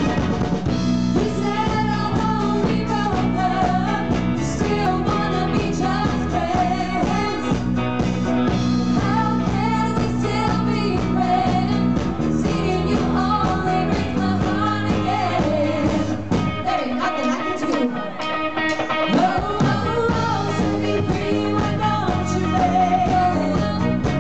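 Live band performance: female vocalists singing in harmony over electric guitar, bass, keyboard and drums, played through a stage PA. The bass and drums drop out for a couple of seconds about two-thirds of the way through, then come back in.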